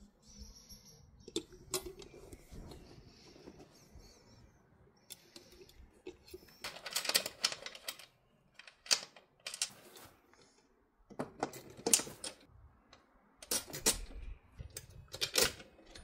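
Irregular clicks and knocks in clusters, sharper and louder in the second half.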